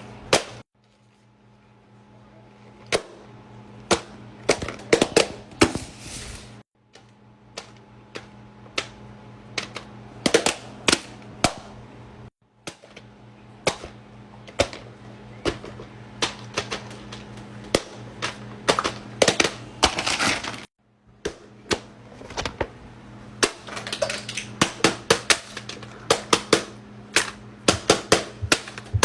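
Fidget toys being clicked, popped and tapped: irregular runs of sharp clicks and snaps over a steady low hum, breaking off abruptly a few times where one short clip cuts to the next.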